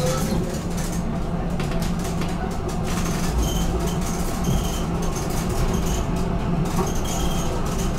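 BN GTL8 articulated tram running along street track, with a steady hum from its running gear and motors.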